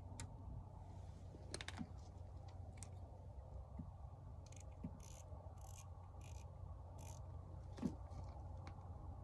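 Light clicks and mechanical ticking from a spinning fishing reel and rod being handled and reeled, with a run of five short hissing sounds about halfway through and a sharper click near the end, over a low steady rumble.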